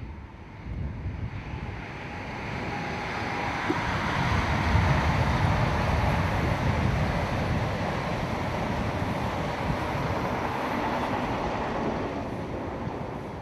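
InterCity 125 High Speed Train with Class 43 diesel power cars passing by: the power car's engine and the wheels on the rails build up over the first few seconds, hold steady as the coaches go by, and begin to fade near the end.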